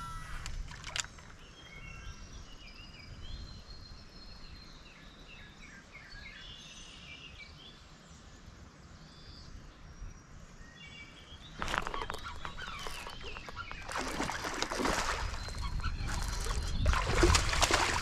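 Birds chirping in short calls over a quiet river bank. About twelve seconds in, loud irregular splashing starts at the water's edge: a hooked smallmouth bass thrashing at the surface as it is brought in to the bank.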